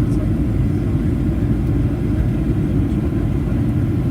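Steady low rumble of a Boeing 737-800 in flight, its CFM56-7B engines and the rush of air heard from inside the passenger cabin.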